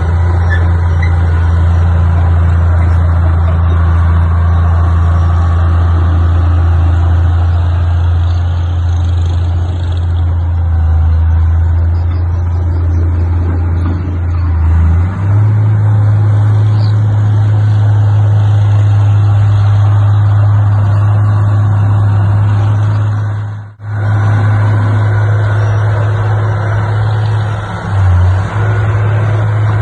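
Heavy diesel machinery engine running steadily, with a deep hum that steps up in pitch about halfway through. The sound cuts out for a moment about two-thirds of the way in.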